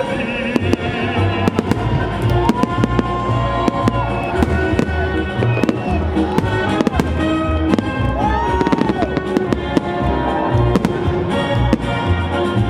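Fireworks going off in many sharp bangs, heard over loud music.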